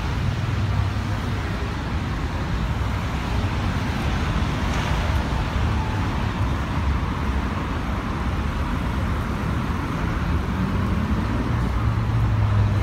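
Steady city traffic noise from a busy avenue: cars passing on the road beside a sidewalk, with a low rumble throughout.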